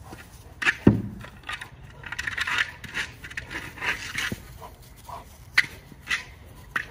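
A large dog pushing and mouthing a hard plastic ball over dry, matted grass: scraping and crunching of ball, paws and grass, with a sharp knock about a second in and a few short, sharp knocks near the end.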